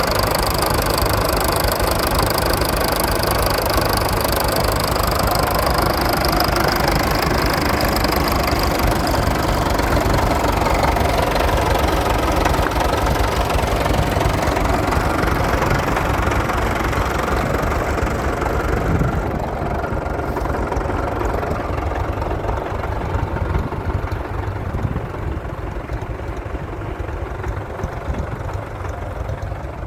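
Tractor engine running steadily at idle. The sound becomes quieter and duller about two-thirds of the way through.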